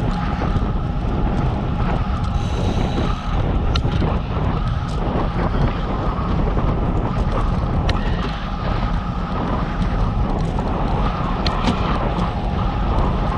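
Wind buffeting the microphone of a moving rider, with steady road noise underneath and a few light clicks.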